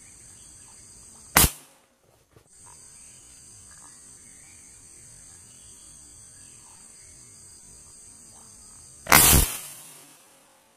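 Two rifle shots: a sharp crack about a second and a half in, and a longer one near the end. A steady high trill of insects runs underneath.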